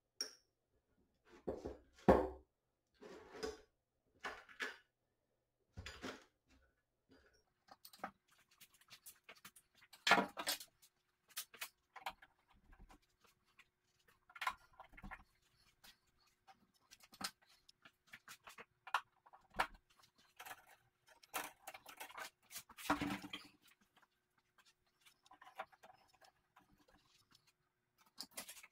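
Scattered clicks, knocks and rustles from hands handling a TV's LCD panel and its metal side brackets during reassembly, with the loudest knocks about ten seconds in and again a little past twenty seconds.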